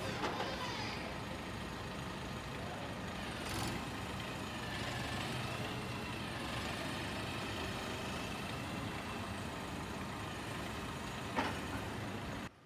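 CAT TH407 telehandler's diesel engine running steadily while the hydraulic boom is lowered and retracted, with a wavering higher whine partway through. A few short knocks are heard, once right at the start, once a few seconds in and once near the end.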